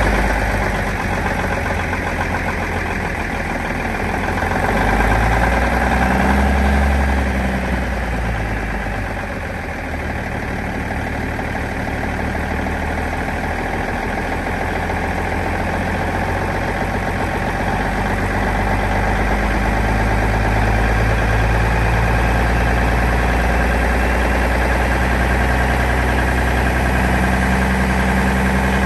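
Big cam Cummins diesel in a Peterbilt 359 running on its freshly rebuilt PT fuel pump. The engine note rises and falls: louder about five to seven seconds in, easing off around ten seconds, then building again and holding steady.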